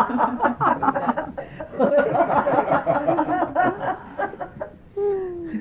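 A small group laughing and chuckling together, with some overlapping talk mixed in, dying down after about four seconds; a single short voice sound follows near the end.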